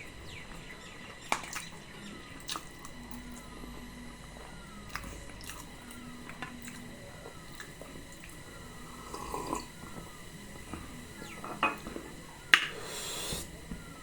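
Close-miked chewing and wet mouth sounds of someone eating soft potatoes and chickpeas in gravy, with a few sharp clicks of a spoon against the bowl and a short louder noise near the end.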